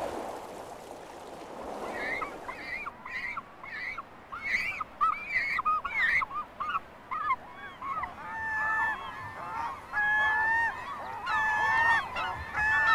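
Gulls calling at a seabird colony: a run of short, quickly repeated calls from about two seconds in, then longer, level calls from several birds overlapping through the second half. Waves lap softly on a stony shore at the start.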